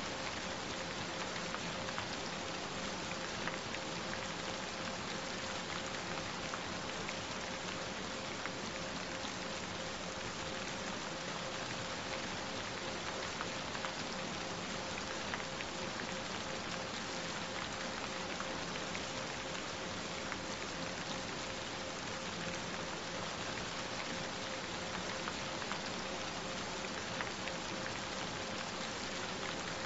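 Steady rain falling, with scattered faint drop ticks and a faint steady tone held underneath.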